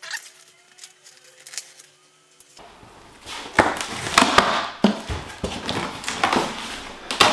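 Packing tape being slit and the cardboard flaps of a large box pulled open: a few light clicks at first, then from about two and a half seconds in, loud scraping and rustling cardboard with sharp knocks.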